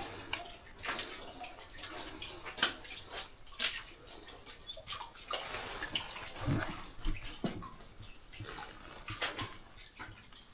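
Water dripping and splashing in a flooded underground mine passage, with irregular drips and splashes about once a second over a faint background of running water.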